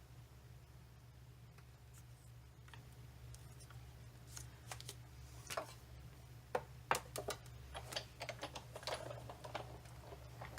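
Scattered light clicks and taps of paper and thin metal cutting dies being handled on a craft table, starting about four seconds in, over a steady low hum.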